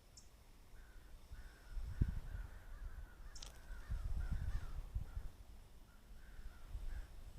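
Crows cawing repeatedly, with a couple of short high chirps and low rumbling noise that swells about two seconds in.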